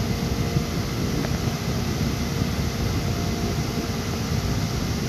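Steady background rumble and hiss with a faint constant hum, without distinct events.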